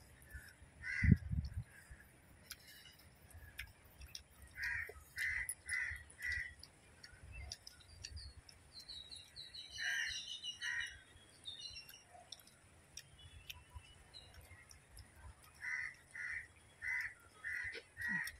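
Crows cawing in short runs of several calls, with small birds chirping briefly in the middle. A single low thump about a second in.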